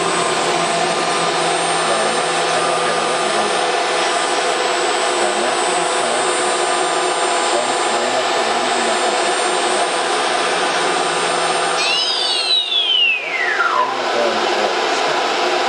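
CNC router running with a steady, loud rushing machine noise and whine. About twelve seconds in, the spindle shuts off and its whine falls in pitch over about two seconds as it spins down, while the steady rushing noise, likely from the vacuum pump, carries on.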